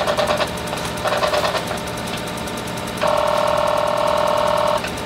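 Teletype Model 37 running, its motor and mechanism clattering steadily with a fine regular beat. Short bursts of printing come near the start and about a second in, and a louder buzzing run comes about three seconds in and lasts nearly two seconds.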